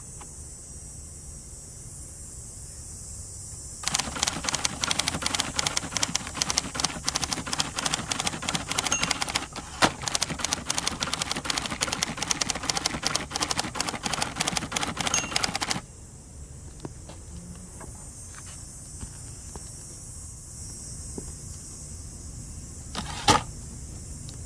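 1967 second-generation Hermes 3000 manual typewriter being typed on: a quick, continuous run of keystrokes starts about four seconds in and stops about twelve seconds later. A single loud clack comes near the end.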